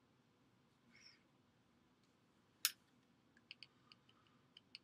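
Faint clicks and ticks of a small screwdriver working in the terminal screws of a plastic NEMA 5-15P plug: one sharper click about two and a half seconds in, then a quick run of light ticks near the end.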